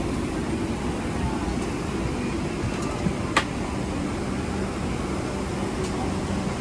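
Steady hum of an airliner cabin's air-conditioning ventilation while the Boeing 777-300ER stands at the gate, with a single sharp click about three and a half seconds in.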